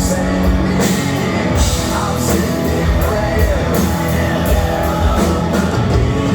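Live rock band playing an instrumental section: an electric guitar lead with bending notes over bass and drums with crashing cymbals.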